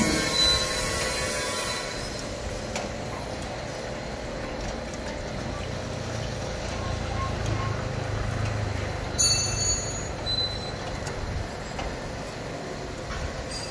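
Continuous conveyor deep fryer running: its stainless mesh conveyor belt and drive grinding and rattling steadily, with a short, sharp high-pitched sound about nine seconds in.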